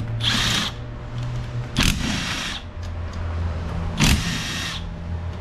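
Cordless impact driver run in three short bursts, about a second and a half apart, loosening a bolt on the Valvetronic assembly of a MINI cylinder head.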